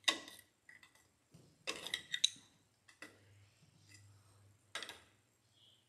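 Light metallic clicks and clinks of a small hand tool working the shift-linkage clamp and rods of a 4hp Mercury outboard: a single click at first, a quick cluster about two seconds in, and another click near the end.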